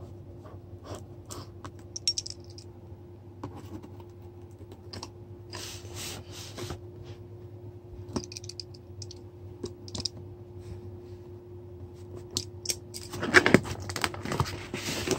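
A knife scraping and clicking as it cuts into a cardboard box and its tape, in short scattered strokes, with louder cardboard handling and tearing in the last two seconds.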